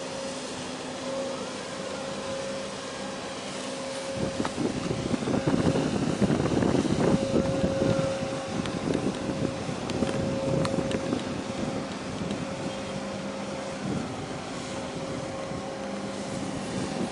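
Large container ship EVER GOVERN passing close by, its machinery giving a steady low hum with a higher steady tone above it. From about four to eight seconds in, a gust of wind buffets the microphone, louder than the hum.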